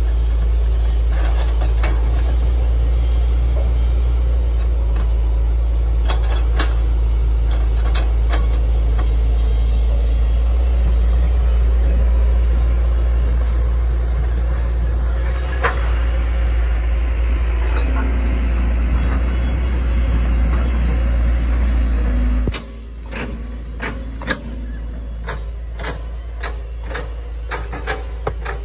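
Hitachi ZX110 excavator's diesel engine running with a steady low drone and occasional knocks. About three-quarters of the way through the engine drops to a quieter level, and a run of sharp clicks and knocks follows.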